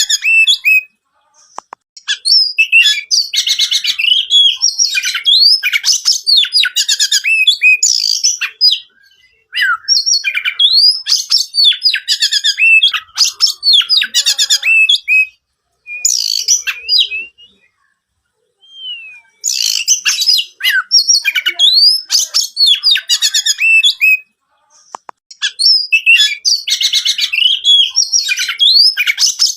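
Oriental magpie-robin singing loudly in long, busy runs of quick whistles, trills and harsh notes, broken by several short pauses and one longer lull about halfway through.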